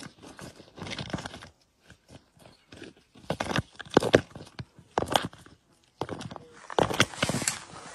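Tortoise shells scraping and knocking on loose gravel as one tortoise shoves an overturned tortoise along the ground: irregular crunches and scrapes, heaviest about three to four seconds in and again near the end.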